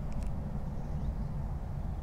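Steady low outdoor rumble, with a few faint ticks near the start and a faint short rising chirp about a second in.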